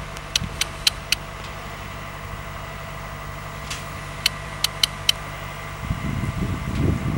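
Mobile crane's engine running steadily while the crane holds a steel bridge girder, with two quick runs of sharp clicks, four near the start and five a few seconds later. Near the end the engine hum drops out and a rough low rumble of wind on the microphone takes over.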